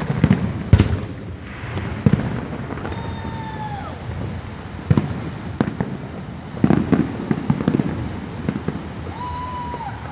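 Aerial fireworks bursting in an irregular run of booms and crackles. A high whistle is heard twice, about three seconds in and again near the end.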